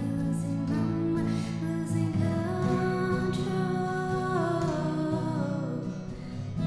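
A woman singing to a strummed acoustic guitar, holding one long note from about two seconds in that slides downward shortly before the end.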